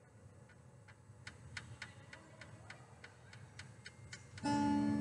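Soft, even ticks about four a second, then near the end a chord struck on a wooden-bodied resonator guitar, starting suddenly and ringing on.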